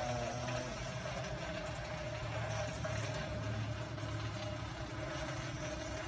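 Bicycle chain running through a clip-on chain-cleaning tool as the cranks are turned, a steady whirring scrub of the chain through the degreaser-filled cleaner.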